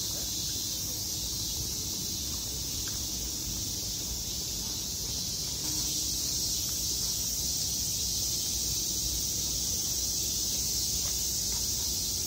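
Cicadas buzzing in a steady chorus in the surrounding trees, a continuous high hissing drone, over a low background rumble.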